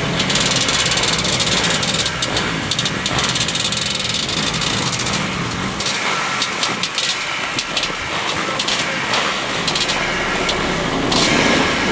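Motocross motorcycle engines running, a rough, crackling, fluctuating noise.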